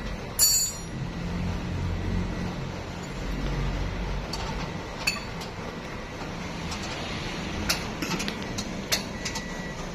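A sharp, ringing metal clink about half a second in, then a few scattered light clicks and knocks, over a steady low rumble.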